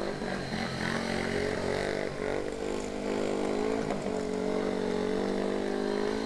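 Speedway bike's single-cylinder methanol engine revving as the rider spins donuts on the shale, its pitch wavering up and down before holding fairly steady.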